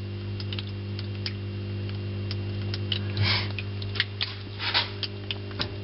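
Steady low electric hum of the vivarium's waterfall pump running, with scattered small ticks and two brief rustles about three and five seconds in.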